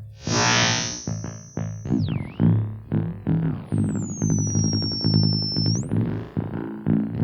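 Instrument played through a circuit-bent Waldman flanger pedal, giving a fast run of repeated, delayed and flanged notes. Over them, a high whistling squeal from the bent circuit sweeps down about two seconds in. Another high tone glides down, holds, then sweeps sharply up near the end.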